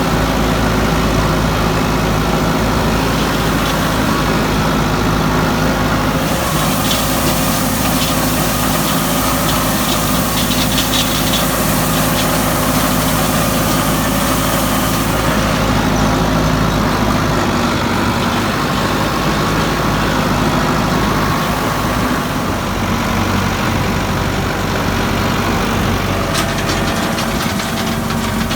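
Tractor engine running steadily under load in a hay field, with a stretch of hiss and scattered clicks from the machinery.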